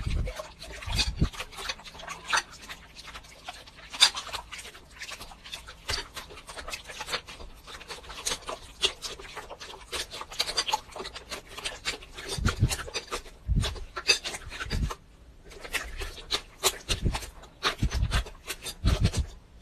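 Crunchy slime being squeezed and kneaded by hand, giving dense, irregular crackling and popping clicks with a few low squelching thuds, several of them about 12 to 15 seconds and 17 to 19 seconds in.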